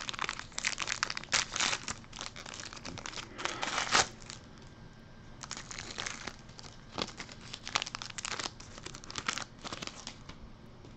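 Foil trading-card pack being torn open, the wrapper crinkling in dense bursts over the first four seconds, loudest near the end of that stretch. After a short lull, more scattered crinkling and rustling follows while the cards are handled.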